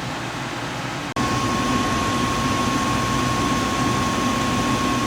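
Costway 10,000 BTU portable air conditioner running with a steady rush of fan noise. About a second in there is a short break, after which it is louder, with a steady high whine and a low hum.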